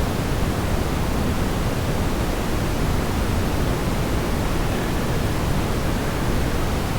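Steady rush of a waterfall, an even hiss-like roar at a constant level.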